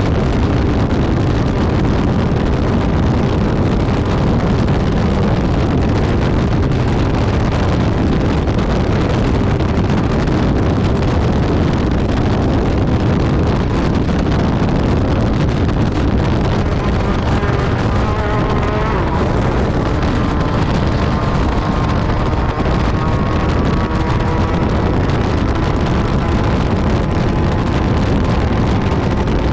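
Class 10 desert-racing buggy running at speed, heard onboard: the engine runs hard under a loud, steady din. From a little past halfway its engine tone comes through more clearly, rising and falling with the throttle.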